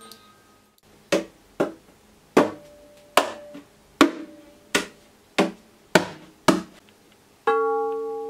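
Hand tapping and slapping the wooden body of an acoustic guitar as percussion: about ten sharp knocks, roughly two a second, each with a short woody ring. Near the end a glass bowl is struck once and rings with several clear tones that slowly die away. The last tinkling notes of a hand-cranked music box fade out at the very start.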